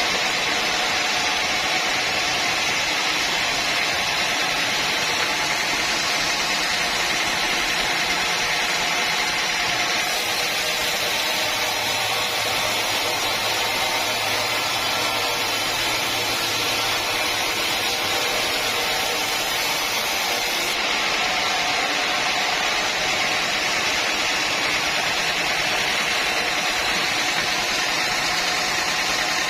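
Sawmill machinery running steadily: a dense, even mechanical hiss with faint steady hum tones, its high end brightening for about ten seconds in the middle.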